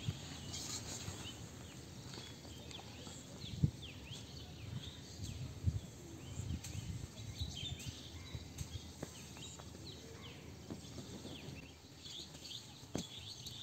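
Outdoor ambience with small birds chirping throughout in many short falling notes, over a low, uneven rumble.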